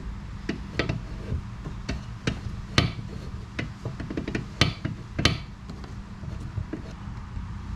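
Scattered sharp clicks and knocks of hand-worked metal shifter hardware, three louder ones in the middle, over a steady low hum.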